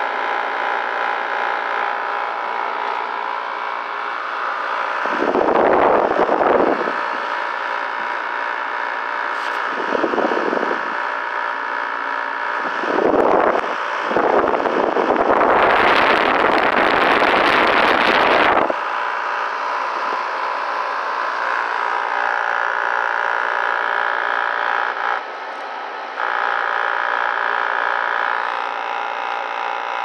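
Window air conditioner running with its compressor and blower fan on: a steady machine hum made of several pitched tones, the unit cooling with frost forming on its coils. Louder rushing noise comes in four times, the longest lasting about three seconds midway through.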